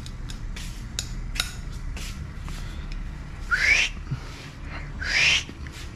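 Small metal hand tools and sockets clinking and clicking as they are rummaged through. About three and a half seconds in, and again near the end, come two short rising whistles.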